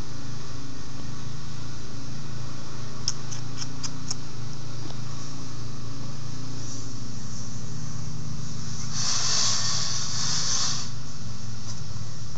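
Steady low mechanical hum of a motor running, with a few light clicks about three seconds in and a burst of hiss lasting about two seconds near the end.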